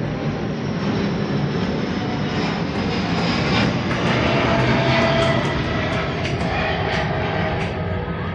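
Engine noise of something passing, swelling to its loudest about halfway through and easing off.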